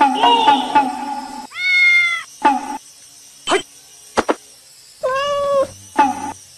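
Domestic cat meowing: two drawn-out meows, about a second and a half in and again about five seconds in, each followed by a short, clipped call. A rapidly pulsing tone runs through the first second and a half.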